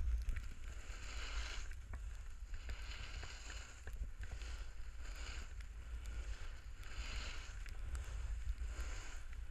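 Snowboard sliding down a groomed slope, its edge scraping and hissing over the snow in swells that come and go every couple of seconds with the turns, over a steady low rumble of wind on the microphone.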